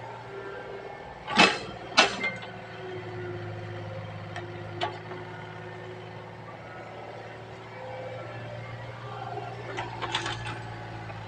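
Excavator's diesel engine running steadily, with two loud sharp knocks about a second and a half in, a couple of lighter clicks a few seconds later, and a cluster of knocks near the end.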